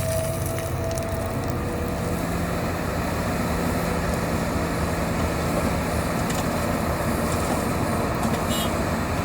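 Hitachi 350 excavator's diesel engine running steadily with a dense rumble, with a higher whine that dies away about two seconds in.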